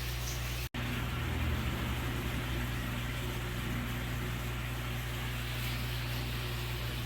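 Steady low mechanical hum with an even hiss, cut by a brief dropout a little under a second in.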